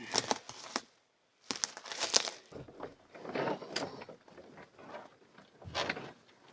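Twigs snapping, brush rustling and scraping, and light knocks as a Prospector 16 canoe is hauled through forest undergrowth; irregular crackles with a brief dropout about a second in.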